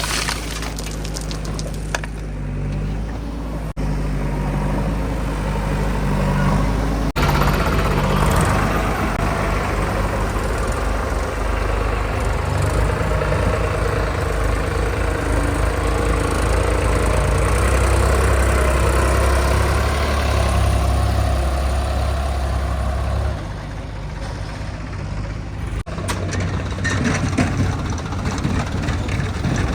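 A diesel tractor engine running steadily, broken by several abrupt cuts. It gets louder about seven seconds in and drops back a little over twenty seconds in.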